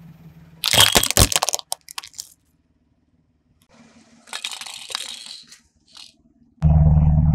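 Hard plastic toys cracking and crunching under a car tyre: a loud burst of sharp cracks about a second in, a softer crunch around the middle, and a low rumble with crackling that starts near the end.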